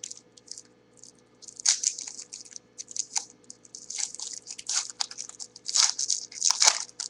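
A football trading card pack wrapper crinkling and tearing as it is opened by hand, in irregular bursts of crackle with short pauses between.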